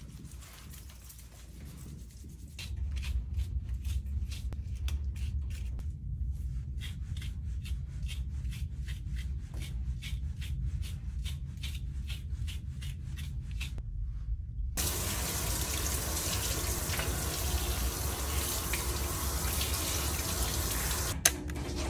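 Grooming comb pulled through a miniature schnauzer's wet, conditioner-soaked, matted coat in short strokes, a couple a second, over a low hum. About fifteen seconds in, a bath sprayer comes on and water sprays steadily, rinsing the conditioner out.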